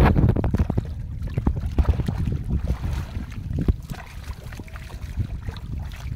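Shallow river water splashing and trickling around a fine-mesh fishing net as it is hauled and gathered by hand. Wind rumbles on the microphone throughout.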